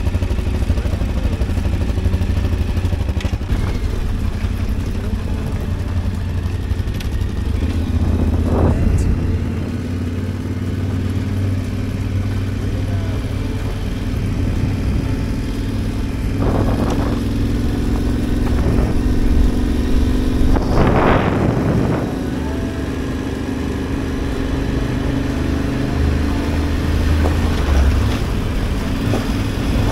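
Adventure motorcycle engine running steadily while riding, with a few brief louder swells about 9, 17 and 21 seconds in.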